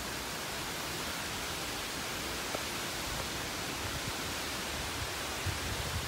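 Tropical-storm wind and rain: a steady, even rush through the pine trees, with a few low bumps of wind on the microphone in the second half.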